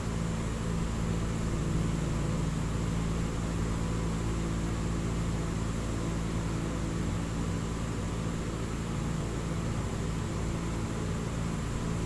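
Steady hum and hiss of a running fan, with a low drone underneath and no sharp sounds.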